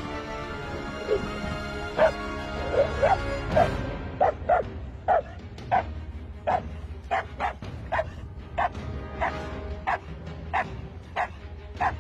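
A dog barking over and over, a few short rising yelps at first, then a steady run of short barks at nearly two a second from about a third of the way in, with background music underneath.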